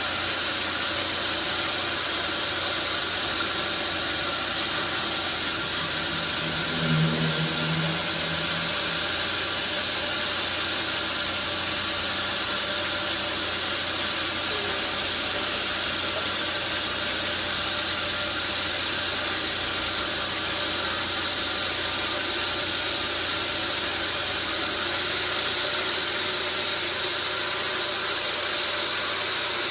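Sawmill machinery running steadily: an engine hum under a continuous rushing noise, with a brief low tone about seven seconds in.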